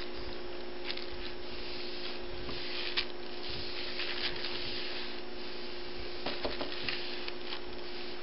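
Soft rubbing, scraping and tapping on paper as a hand plays with a kitten lying on it, over a steady electrical hum.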